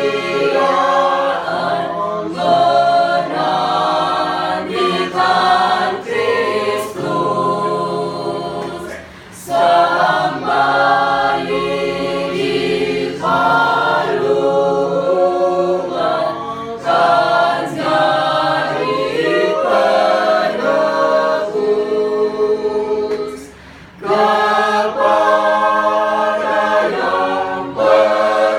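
Mixed church choir singing a hymn a cappella in parts, in phrases broken by two brief breaths.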